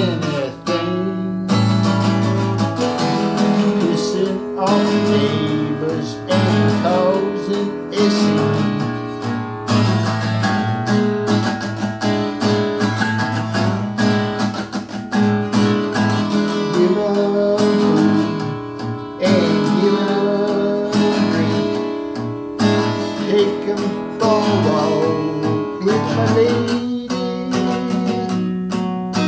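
Acoustic guitar strummed and picked in a steady, rhythmic accompaniment.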